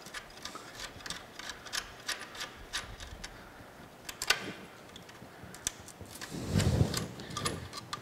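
Rusty conduit bushing being unscrewed from an electrical junction box, worked by hand and with channel-lock pliers: a run of small, irregular metallic clicks and ticks, with a sharper click about four seconds in and a short stretch of rubbing and scraping shortly before the end.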